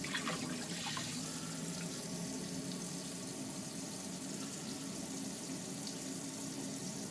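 Hot water running steadily from a camper's faucet into the sink, drawn continuously from an Alde water heater. There are a few brief faint sounds in the first second.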